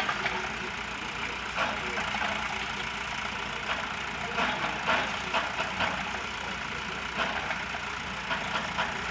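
Heavy construction machinery engine running steadily, with brief intermittent clatter over it.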